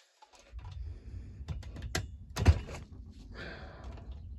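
Small plastic clicks and knocks from hands working a throttle cable out of a petrol hedge trimmer's housing, with one louder knock about two and a half seconds in and a brief scrape after it.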